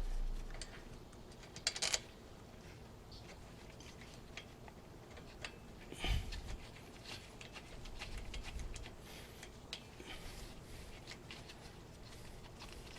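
Faint scattered metallic clicks and taps of a brake caliper's lower guide-pin bolt being started and threaded in by hand, with a few louder clicks about two seconds in and again about six seconds in.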